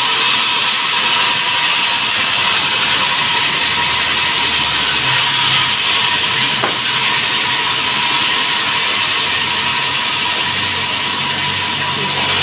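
Sawmill band saw ripping a long timber plank: a steady loud hiss of the blade cutting wood with a faint steady whine, and a single sharp click about seven seconds in.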